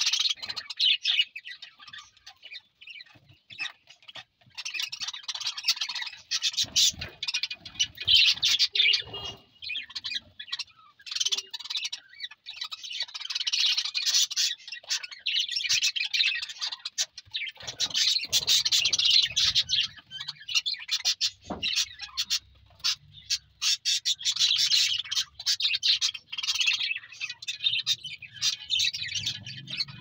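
A flock of budgerigars chirping and chattering, a busy warble of quick high notes that comes in bouts with short lulls between them.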